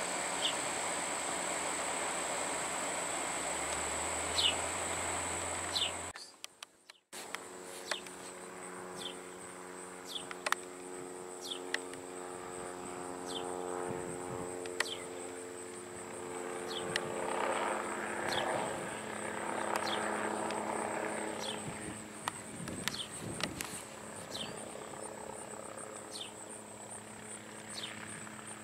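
Hughes OH-6A (MD 369A) helicopter flying at a distance, heard as a steady hum of several pitches that shift as it moves, under a continuous high insect shrill with short falling chirps about once a second. Before a brief dropout about six seconds in, only a steady noise is heard.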